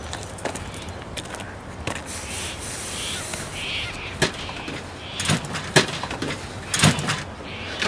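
Scattered knocks and clanks with bursts of scraping and rustling from rummaging inside a stripped junked car. The knocks are irregular, several of them sharp, and the louder ones fall in the second half.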